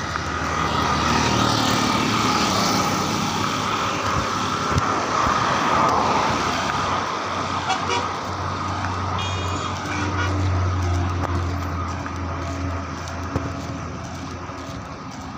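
Street traffic noise with vehicles running and a horn sounding around nine to ten seconds in.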